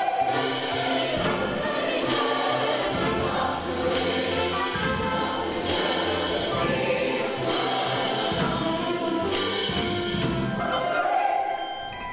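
Ensemble chorus singing with orchestral accompaniment, with a regular beat. Near the end the music drops back and high bell-like tones ring out.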